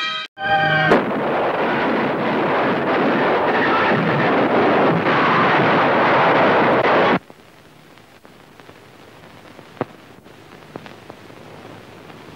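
Cannon firing on an old film soundtrack: a sharp blast about a second in, then a long, loud rumbling roar that cuts off abruptly about seven seconds in. Faint film hiss with scattered crackles follows.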